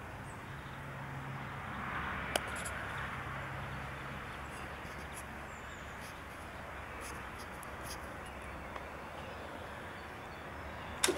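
Faint outdoor background noise with a few small clicks, the motorcycle's engine not running; near the end a sharp click as the ignition key of the Buell XB12R Firebolt is turned.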